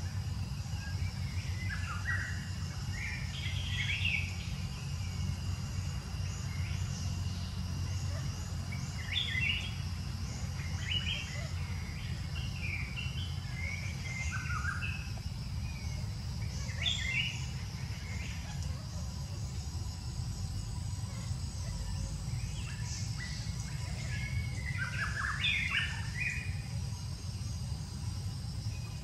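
Scattered clusters of short, high chirping calls over a steady low rumble.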